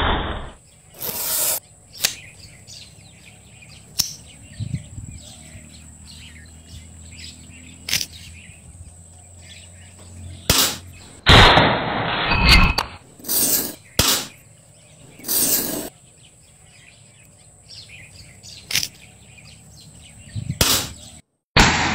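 Sharp snaps and clicks of homemade bamboo slingshots and spring-loaded bamboo launchers being cocked and fired, about a dozen scattered through, with a few longer rushing bursts. Birds chirp in the background.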